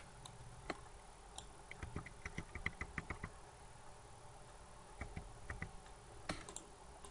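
Faint clicking of computer keyboard keys: a quick, even run of about ten presses a couple of seconds in, with a few single clicks before and after.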